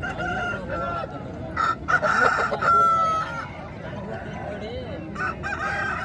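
Roosters crowing, the loudest a long crow with a held, steady note about two seconds in, with fainter crows and calls near the start and end.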